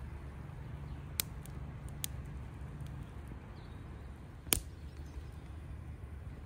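Small campfire of dry twigs and split wood burning, crackling with a few sharp pops over a low steady rumble; the loudest pop comes about four and a half seconds in.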